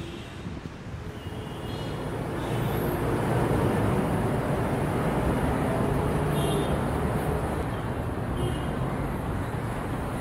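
Steady city road-traffic noise, a dense rumble of passing cars, growing louder about two seconds in.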